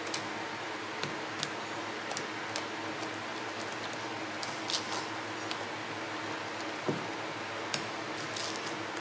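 Silicone spatula stirring thick cake batter in a stainless steel bowl: soft wet squishing, with scattered light clicks of the spatula against the bowl, over a steady hiss.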